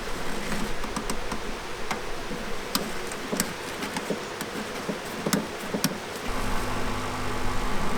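Scattered light clicks and knocks, then, about six seconds in, a motor-vehicle engine comes in and runs steadily at idle.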